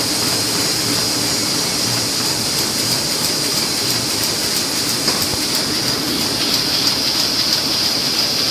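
1998 Roland 304 four-colour sheet-fed offset printing press running, a steady mechanical clatter with a high hiss and light regular ticking as the feeder takes sheets.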